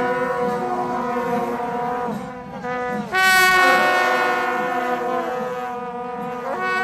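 Procession music from wind instruments: several held notes that bend and slide between pitches, swelling louder about three seconds in.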